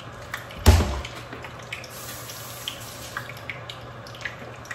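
A kitchen tap runs in a steady rush of water. A single heavy thump comes just under a second in, and a few light clicks follow.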